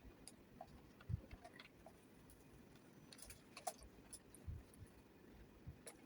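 Near silence broken by scattered faint clicks and light knocks as a ring light is handled; the sharpest click comes a little past halfway.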